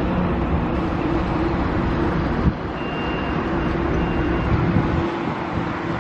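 Train running on an electrified main line: a steady low rumble with a hum, a sharp click about two and a half seconds in, and a faint high steady tone for a second or two in the middle.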